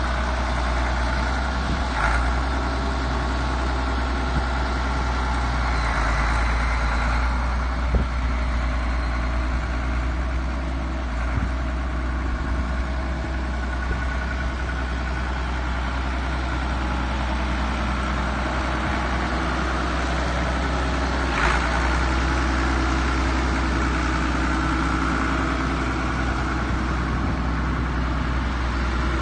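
Case 970 tractor engine running steadily as the tractor drives slowly with its loader bucket raised, with a few short clicks over it.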